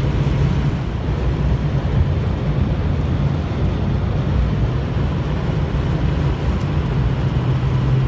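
Inside a pickup truck's cab while driving in strong, gusty wind: a steady low engine drone under a continuous rush of road and wind noise.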